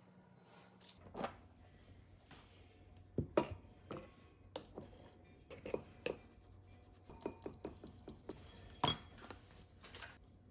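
Kitchen utensils, bowls and dishes being handled during baking: irregular clinks and knocks, a dozen or more, with the loudest strikes about three seconds in and again near the end.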